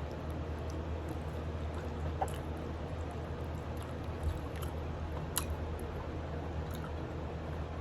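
Chewing on chicken feet, with a few sharp mouth clicks, over a steady low hum.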